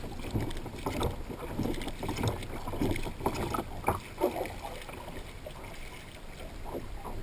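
Water lapping and slapping irregularly against a plastic kayak hull and its outrigger floats, with wind noise on the microphone.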